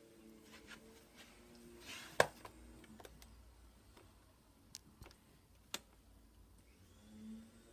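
A few light, sharp clicks and knocks, the loudest about two seconds in and two more near the middle, over a faint steady hum in a small room.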